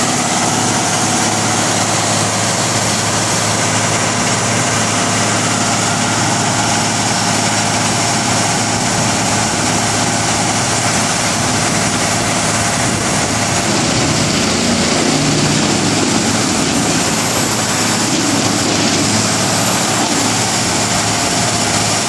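Large diesel engine of a Morbark 40/36 whole-tree chipper running steadily, an even, unchanging drone with a strong hiss over it.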